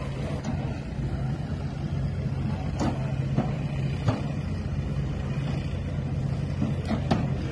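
A steady, low engine hum, with a few sharp knocks or clicks: one a little before the middle, one near the middle and one near the end.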